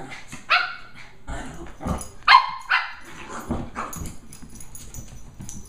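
Lhasa Apso puppies play-fighting, giving several short, high-pitched barks and yips, the loudest about two and a half seconds in, with thumps between them.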